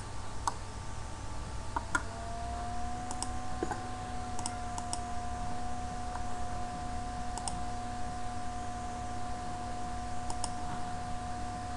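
Scattered single clicks of a computer mouse and keys, about a dozen spread irregularly, over a low steady hum; a steady mid-pitched tone sets in about two seconds in and holds.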